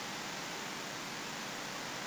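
Steady, even hiss with no other sound.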